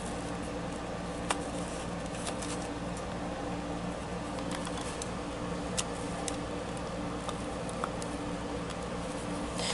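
Steady low room hum with a few faint, scattered clicks and light rustling as hands handle the animatronic's plastic frame and cloth costume.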